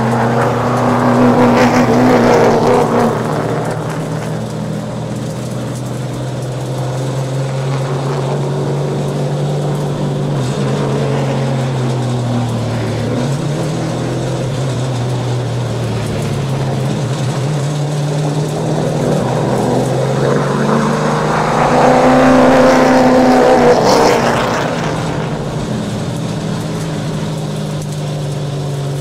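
Late model stock car's V8 engine running hard on the track, its pitch dipping and rising again and again. It swells loudest near the start and again about three-quarters of the way through.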